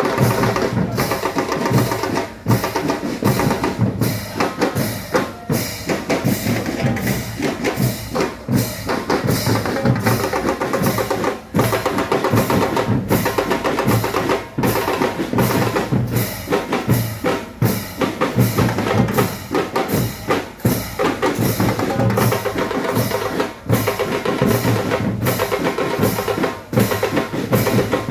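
A band playing music over a steady drum beat, with bass drum and snare.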